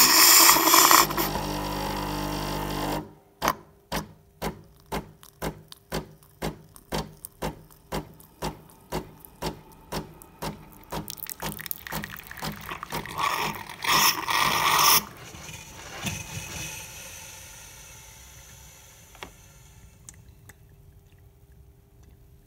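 Nespresso Lattissima Touch running its milk-circuit cleaning cycle: a loud hiss of steam and water through the milk spout, then steady pump pulsing about one and a half times a second, then a second hissing rush that fades away.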